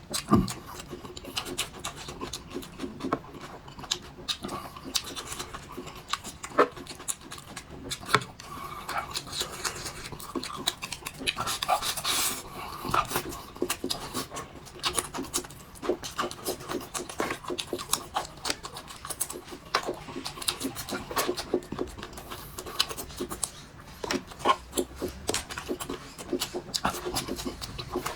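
Close-miked eating sounds: irregular wet chewing, smacking and crunching, with heavy breathing between mouthfuls.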